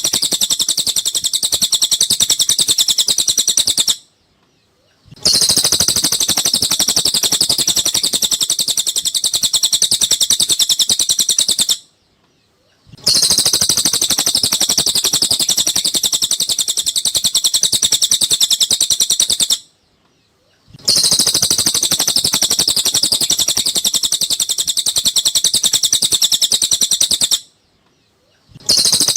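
Cililin bird singing a long, very rapid run of high chirps, in bouts of about seven seconds that stop abruptly for about a second and start again: a looped song recording played as tutor song for cage birds.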